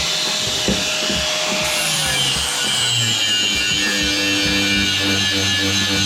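Background music with a power tool running underneath; the tool's pitch drops slightly as it winds down about two seconds in.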